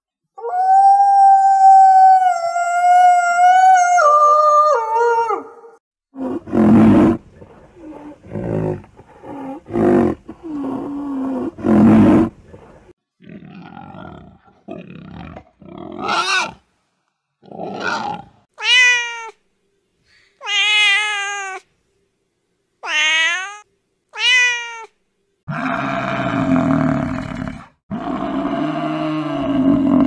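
A wolf howls one long, steady howl that breaks and falls after about five seconds. Pigs follow with short grunts, then a run of short sliding squeals. Near the end, Cape buffalo give deep lowing calls.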